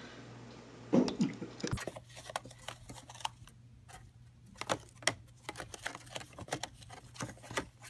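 A thump about a second in, then an irregular run of small clicks and scratches as a pet hedgehog moves about and shuffles its cage bedding.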